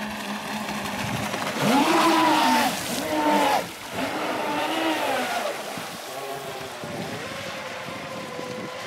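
Twin brushless electric motors of an RC racing catamaran whining as it runs at speed, the pitch rising and falling in long sweeps several times with the throttle. It is loudest from a couple of seconds in until it drops off suddenly about halfway through.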